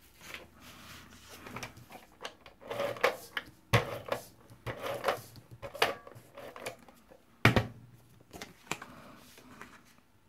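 Cardstock and a tape dispenser being handled on a tabletop: rustling and scraping of paper with a series of small clicks and knocks, the two sharpest about four and seven and a half seconds in.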